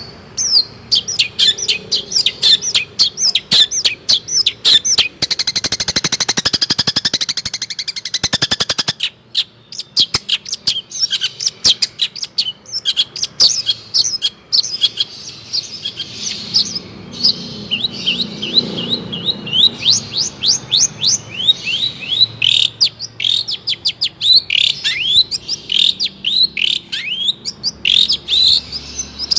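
Long-tailed shrike (cendet) singing: a fast, busy run of short, sharp chirps and sweeping whistled notes, broken from about five to nine seconds in by a dense, buzzing rattle.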